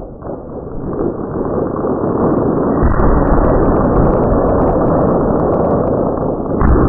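Fireworks display in a dense barrage, the bursts running together into a continuous roar with crackles on top. It builds in loudness over the first few seconds and grows deeper about three seconds in.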